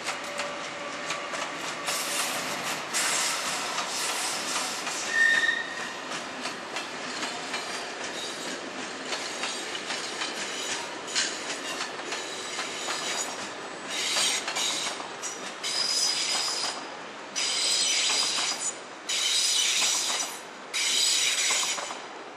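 Passenger train wheels rolling through station track, clattering over rail joints and points. In the second half there are several long stretches of high-pitched wheel squeal.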